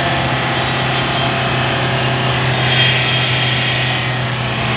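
Hyundai i20 1.4 common-rail diesel engine held at high revs, running steadily at a constant pitch. No knock can be heard: its injectors have been freshly cleaned and coded.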